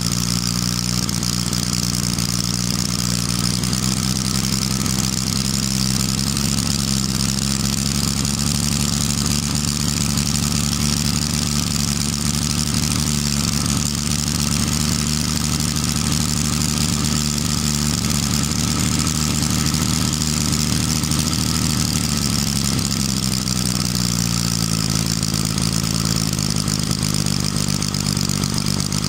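Hand-built three-cylinder four-stroke model ship diesel engine running steadily, its speed dropping a little about 23 seconds in.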